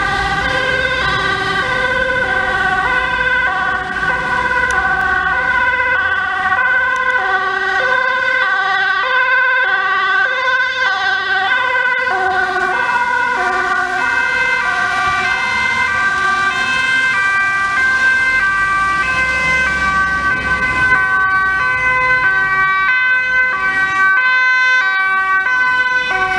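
Dutch two-tone emergency sirens alternating between a high and a low note as an ambulance and a police car pass one after the other, two sirens at times sounding together out of step.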